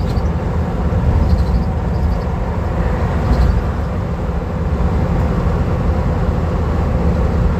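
Van cruising at highway speed: a steady low rumble of engine and road noise, with a faint steady hum above it.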